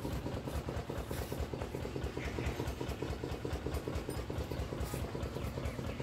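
A motor or engine running steadily with a fast, even pulse.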